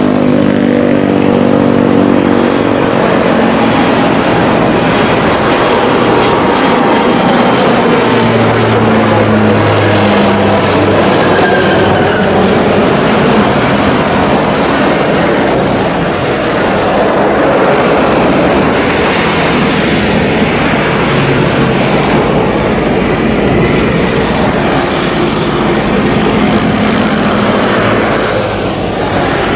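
NC-212-200 Aviocar's twin Garrett TPE331 turboprops at takeoff power as the plane lifts off and climbs away. A loud, steady propeller drone whose tones fall in pitch over the first ten seconds or so as it passes and recedes.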